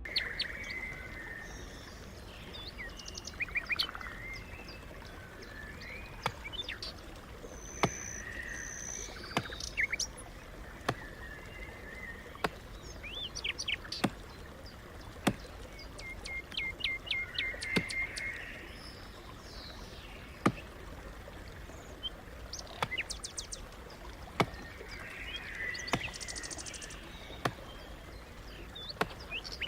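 Several wild birds singing and calling, with short chirps, quick trills and whistles. Sharp ticks come every second or two over a steady low rumble.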